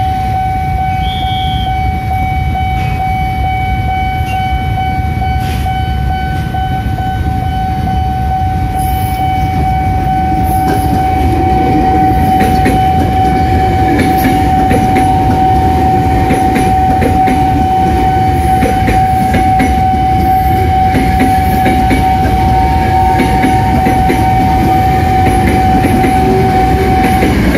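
A railway level-crossing alarm sounds one steady, unbroken high tone that cuts off just before the end. From about ten seconds in, a KRL commuter electric train runs over the crossing, its wheels clattering on the rails.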